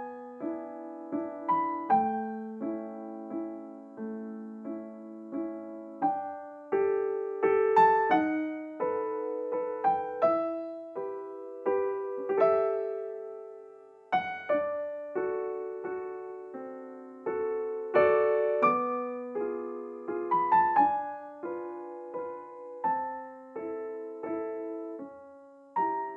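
Background piano music: a slow, gentle melody over held chords, each note struck and dying away.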